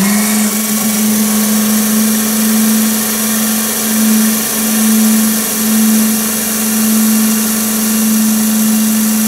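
The motor of a 12-volt electric hydraulic jack runs with a steady whine as the jack is lowered. The whine drops in pitch as the motor winds down and stops at the very end.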